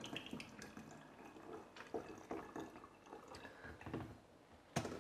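Faint drips and small handling clicks around a glass bottle just filled with thin, vinegary hot pepper sauce through a funnel. A sharp knock comes near the end.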